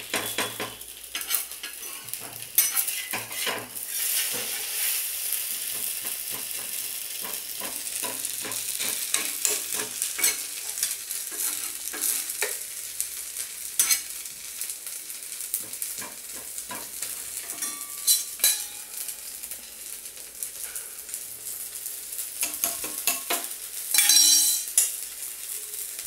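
A dosa sizzling on a hot dosa tawa, a steady frying hiss, with repeated clicks and scrapes of a steel spatula against the pan. A louder metallic clatter comes near the end.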